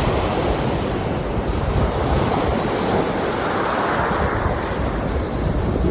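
Small lake waves washing over rocks and sand, a steady rushing wash that swells slightly midway, with low rumbling wind on the microphone.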